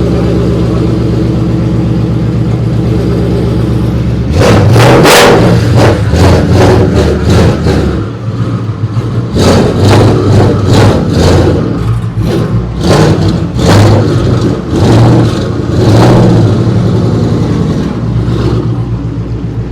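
Loud car engine idling steadily, then revved hard about four seconds in, in a string of a dozen or so quick throttle blips over the next dozen seconds, before settling back toward idle near the end.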